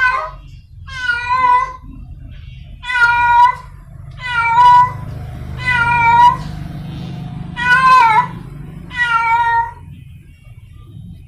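Free-roaming village cat in heat calling for a mate: about seven loud, drawn-out meows, each under a second long, one every one to two seconds, over a low steady rumble.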